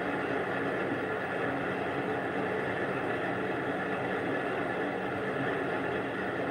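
Small benchtop metal lathe running steadily, its motor and spindle drive giving a continuous hum, as the tool is fed by hand.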